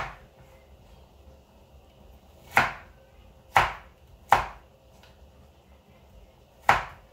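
Kitchen knife chopping carrots on a wooden cutting board: about five separate, unevenly spaced knocks of the blade striking the board.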